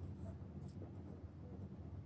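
Faint light scratching and small ticks over a steady low hum.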